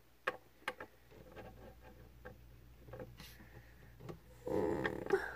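Light clicks of a hard plastic toy figure tapped down on a tabletop as it is moved along, two sharp taps within the first second and fainter ones after, then a short rustle about four and a half seconds in.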